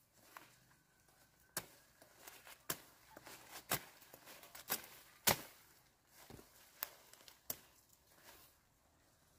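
Machete chopping through leafy green plant stems, about seven sharp chops spaced roughly a second apart, with leaves rustling between them.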